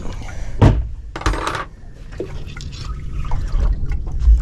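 A sharp knock about half a second in, then a short splashy rattle, as a tiger flathead is unhooked and dropped into a plastic esky. A steady low rumble runs underneath, with another low thump near the end.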